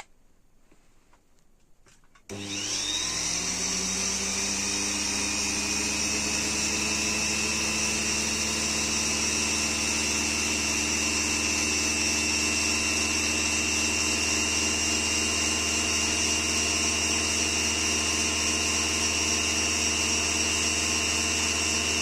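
Sewing machine motor driving a Unimat SL 1000 lathe through a belt and 3D-printed pulleys: it switches on about two seconds in, spins up within a second, and runs steadily at full speed, around 4,800 rpm, with a high steady whine. It begins to wind down at the very end.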